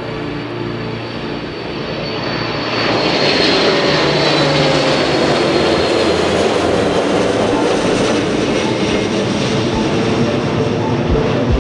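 Large military jet aircraft passing close by, its engine noise swelling about two seconds in and staying loud, with a high whine that slides down in pitch as it goes past.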